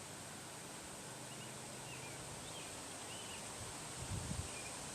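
Quiet outdoor background with a few faint, short bird chirps in the middle, and a couple of soft low bumps near the end.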